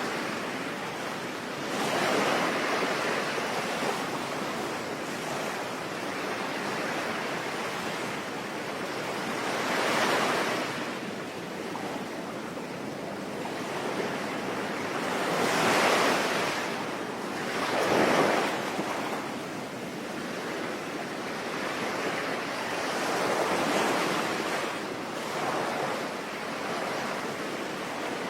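Ocean waves breaking in slow surges every several seconds over a steady hiss of rain.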